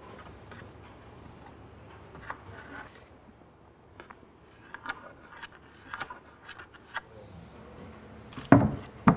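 Light clicks and taps of a plywood board being handled on the wooden boat frame, then near the end loud, sharp wooden knocks start, two in quick succession.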